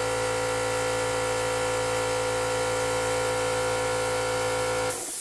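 Electric air compressor running with a steady hum. Near the end the motor stops and a short hiss of air follows.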